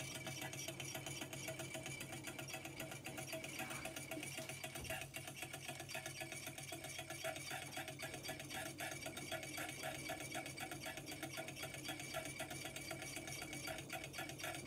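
Small low-temperature-differential Stirling engine running on the heat of a hot mug of tea, its flywheel and linkage making a rapid, even ticking.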